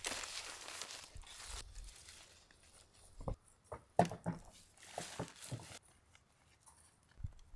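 Rustling of a quilted nylon chair quilt being handled and pulled onto a wooden folding camp chair, followed by scattered sharp knocks and crunches, the loudest about four seconds in.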